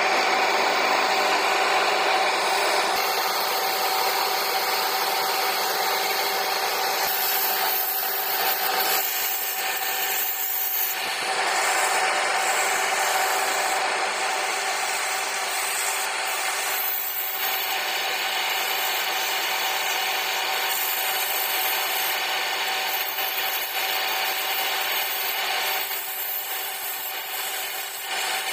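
Wood lathe running while a hand chisel scrapes and cuts the spinning wooden goblet: a steady rasping of tool on wood over the lathe's constant hum.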